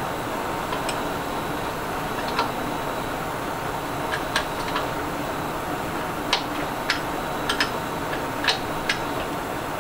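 Light metallic clicks and taps, scattered irregularly, as two small open-end wrenches are fitted against the collet and spindle of a CNC mill, over a steady room hum.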